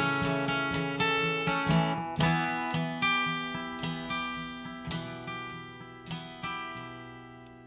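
Background music: acoustic guitar strumming chords. The strums thin out, and the last chord rings out and fades near the end.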